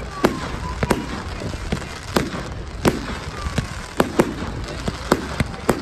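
Fireworks going off: an irregular series of sharp bangs and cracks, a dozen or more, some close together in pairs.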